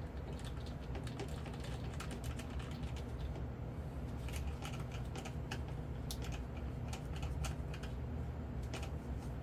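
Hand screwdriver turning screws down into a model jet's airframe: a run of small, irregular clicks and ticks over a steady low hum.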